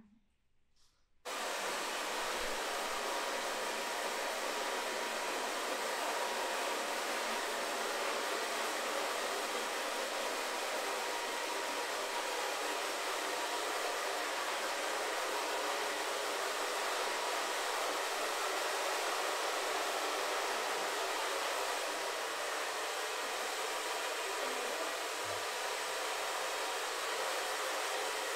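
Hand-held hair dryer switched on about a second in, then blowing steadily with an even rush of air.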